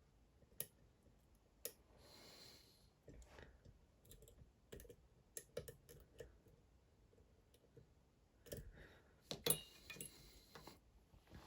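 Faint, irregular small clicks and light scrapes of lock picks working the pins of a Dom IX Twinstar cylinder, a lock with two rows of pins, during picking; the busiest cluster of clicks comes about nine seconds in.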